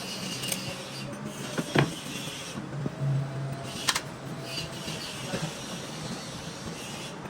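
Steady workshop background hum with a few sharp clicks, two of them standing out about two and four seconds in.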